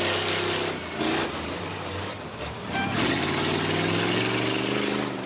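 School bus engines revving, the pitch climbing and falling, loudest in the second half, over a steady background din.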